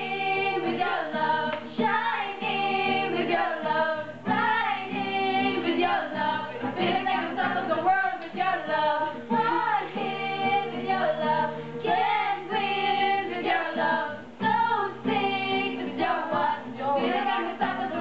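A group of amateur voices, mostly female, singing a pop song together over steady guitar chords.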